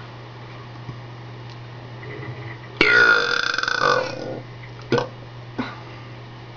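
One long, loud burp lasting about a second and a half, its pitch dropping sharply at the start. It is followed by two brief short sounds about a second and a half later.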